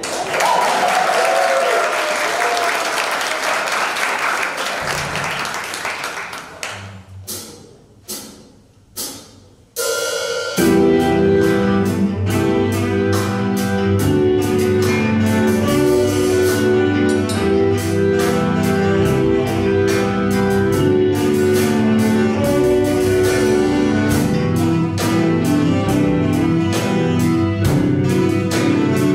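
Audience applause that dies away into a few last claps, then about ten seconds in a jazz band of saxophones, trumpet, trombone and drum kit starts a piece with a steady beat.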